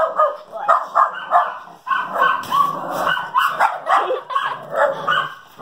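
A dog barking over and over, two or three barks a second, with some yips mixed in: agitated barking at a blow-up deer.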